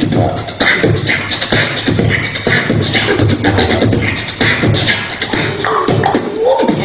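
Beatboxing: a vocal drum beat of kick- and snare-like mouth sounds in a steady rhythm, with hummed and voiced tones woven between the hits.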